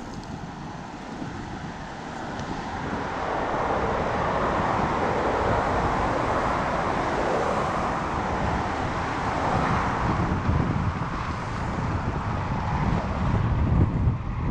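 Wind buffeting the microphone while riding a road bike, with a broad rushing noise that swells about three seconds in and eases off near the end.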